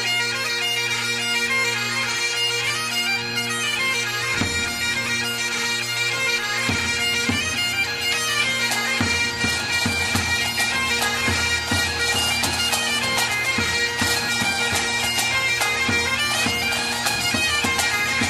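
Bagpipe music: a pipe melody played over steady low drones.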